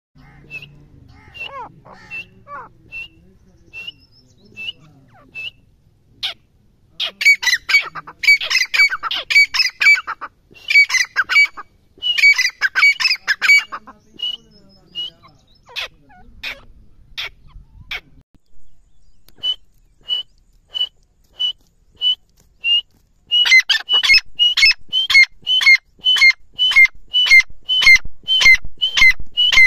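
Grey francolin (teetar) calling. It gives single, evenly spaced high shrill notes, breaks into two bursts of rapid, loud repeated calls, pauses with a few scattered notes, and ends in a long fast run of about two ringing calls a second.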